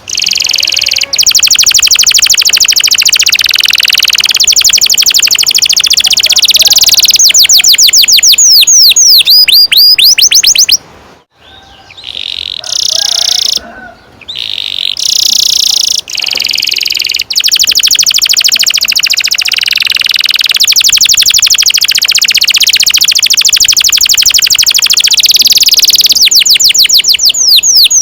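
Domestic canary singing long rolling trills: very rapid repeated notes held for several seconds at a time. The trills are broken by runs of quick rising-and-falling whistled sweeps and a brief pause about a third of the way in.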